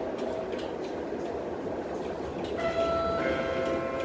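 Interior running noise of a Tatra T6B5 tram in motion, a steady rumble of the car on its rails. About two and a half seconds in, a squeal of several steady high tones sets in, thickening with further tones half a second later.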